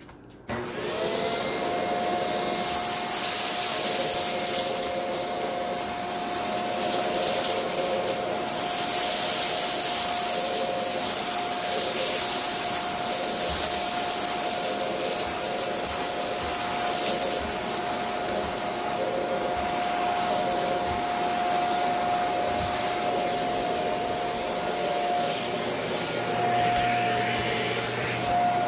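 Shark Apex upright vacuum cleaner switched on about half a second in, its whine rising quickly to a steady pitch and running on. A louder hissing rush comes and goes over the first half as spilled rock salt is sucked up.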